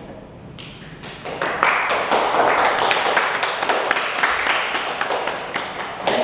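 Hands clapping in applause, a dense run of claps that starts about a second in and carries on.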